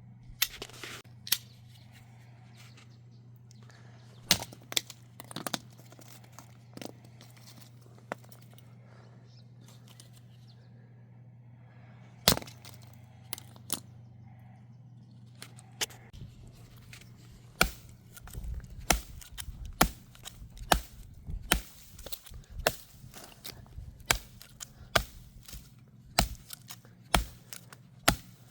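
Cold Steel Mayhem folding knife chopping into wood: sharp strikes, a few scattered through the first half, then coming about once or twice a second from a little past halfway. A steady low hum runs underneath.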